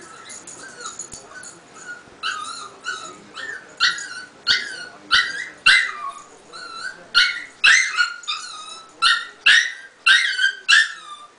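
A chihuahua crying. Soft high-pitched whines at first, then from about two seconds in a steady run of loud yelping cries, roughly one every 0.6 s. It is separation distress: she has just woken and cannot find her owner.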